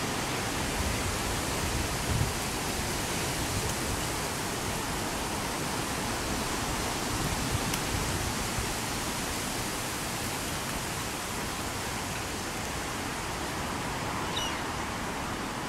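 Steady wind noise, an even hiss, with a low buffet on the microphone about two seconds in.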